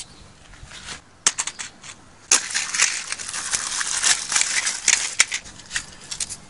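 A lighter clicked, then for about three seconds a dense crackling, crinkling rustle of a cardboard matchbox and paper being torn and crumpled by hand, trailing off into scattered small clicks.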